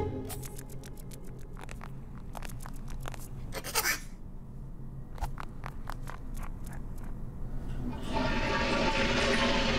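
Cartoon sound effects: a run of quick light ticks like small scurrying footsteps, a short swish about four seconds in, a few more ticks, then a steady rushing hiss that comes in about eight seconds in.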